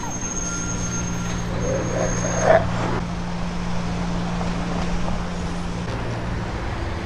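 Steady low hum of a nearby vehicle engine in street traffic, which stops near the end, with a single brief whimper from a Siberian husky about two and a half seconds in.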